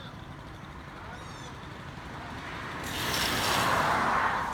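A loud rushing noise that swells about three seconds in, holds for a second or so, then drops away quickly, over a steady low hum.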